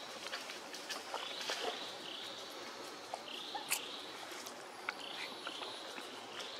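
Outdoor ambience of short, high chirping calls repeating, mostly in pairs, about once a second, with scattered light clicks and a sharper click just under four seconds in.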